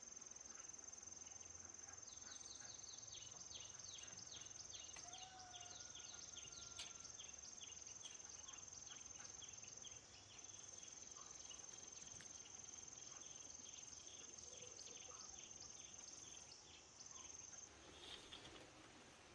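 Faint insects trilling in one steady high note, joined about two seconds in by a quick, repeated run of short falling chirps that fades out near the end.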